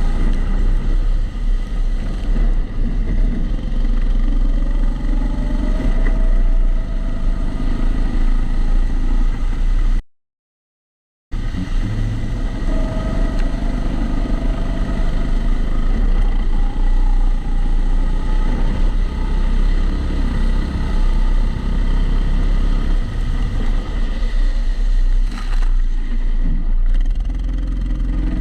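Kombikart Eco kart engine running under load on track, its revs rising and falling through the corners, heard onboard and muffled by a camera in a closed housing. The sound cuts out completely for about a second partway through.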